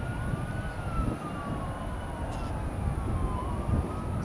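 Emergency vehicle siren wailing, its pitch slowly rising and falling, over a low rumble.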